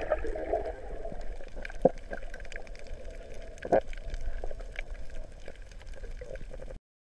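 Muffled underwater water noise heard through a waterproof camera housing, with scattered faint clicks and two sharper knocks about two and four seconds in; the sound cuts off shortly before the end.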